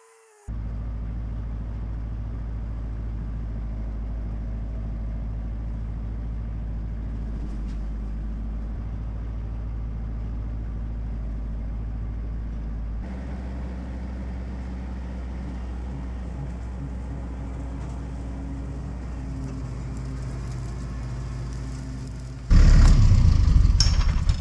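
Vehicle engine running steadily at a constant pace. Its sound changes about halfway through, and it turns much louder and rougher near the end.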